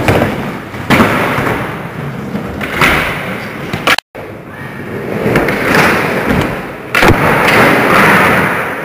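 Skateboard wheels rolling loudly on a smooth indoor floor, with sharp thuds of the board about a second in and near seven seconds. The sound cuts out briefly about four seconds in.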